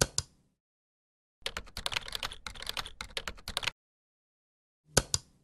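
Computer keyboard typing: a quick run of keystrokes lasting about two seconds. It comes between two pairs of sharp mouse clicks, one pair at the start and one near the end.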